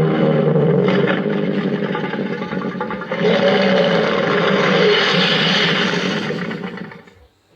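Giant-monster roar sound effect: a long, rough, pitched roar in two surges, the second starting about three seconds in and harsher, cutting off near the end.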